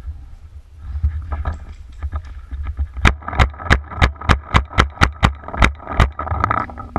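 Paintball marker firing a rapid string of about a dozen sharp shots, roughly four a second, starting about three seconds in, over a steady low rumble of wind and handling noise on the microphone.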